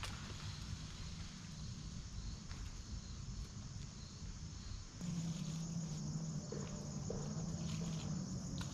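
Insects droning steadily at a high pitch over a low rumble. About five seconds in, the sound changes abruptly: the insect drone gets louder and a low steady hum joins it.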